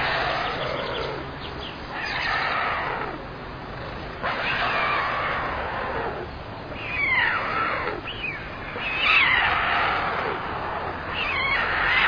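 White stork chicks giving raspy, hissing begging calls in repeated bouts of a second or two, about one every two seconds.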